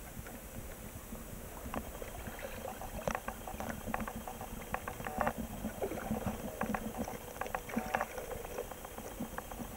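Water splashing and lapping in many small, irregular splashes around a swimming cat and a stand-up paddleboard, busiest through the middle.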